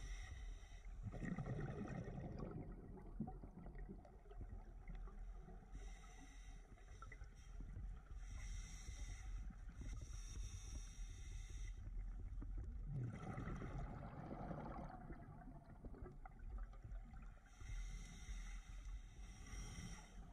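Scuba diver breathing through a regulator underwater, with two bursts of exhaled bubbles gurgling, about a second in and again about two-thirds of the way through, over a steady low rumble.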